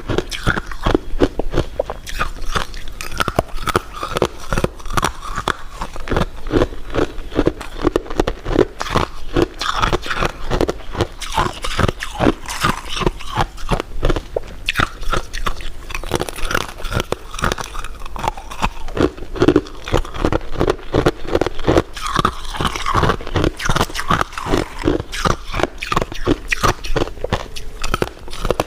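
Close-miked eating sounds: biting and chewing crunchy food, with a dense run of crisp crackles and wet mouth clicks.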